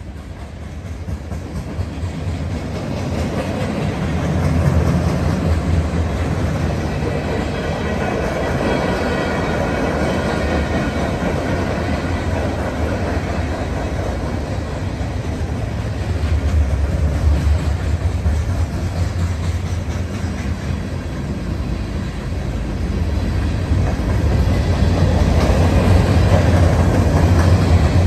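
Freight cars of a mixed manifest train rolling past at close range: steady rumble and clatter of steel wheels on the rails, growing louder toward the end.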